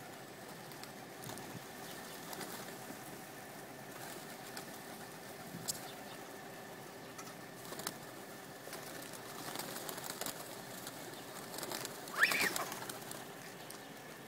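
A flock of feral pigeons with wings flapping as birds take off and land close by, and a few sharp wing claps. A brief high-pitched squeal about twelve seconds in is the loudest sound.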